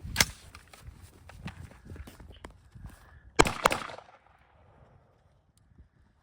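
Gunshots on a shot-timer drill: one shot just after the start, lighter clicks, then two quick shots a quarter-second apart a little over three seconds in.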